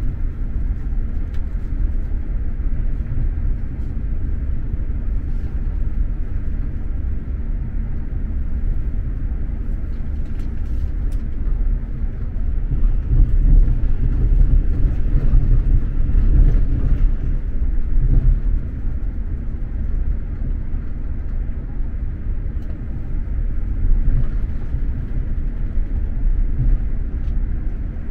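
Steady low rumble of an SJ X2000 high-speed train running, heard from inside the passenger carriage, swelling a little about halfway through.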